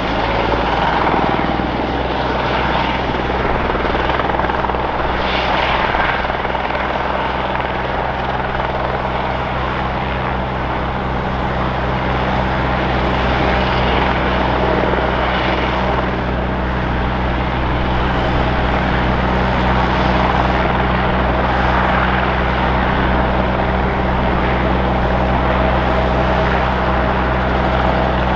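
Eurocopter (Airbus) EC120B Colibri helicopter hovering and air-taxiing low over the ground, with its Fenestron ducted tail fan. The rotor and engine run steadily: a constant low rotor thrum under a broad rushing noise, holding the same level throughout.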